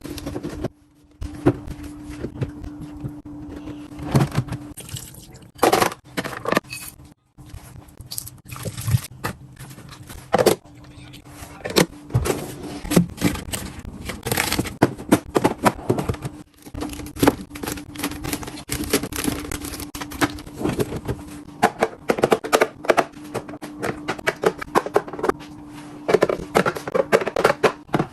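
Irregular clatter, knocks and scraping of food items and plastic storage containers being handled and set down, over a faint steady hum that drops out and returns.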